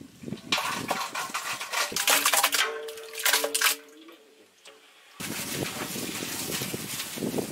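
Thick marinated mutton slopping wetly out of a large metal pot into a cooking pot, with scraping against the metal, from about half a second in to about four seconds. A steady hiss follows from about five seconds in.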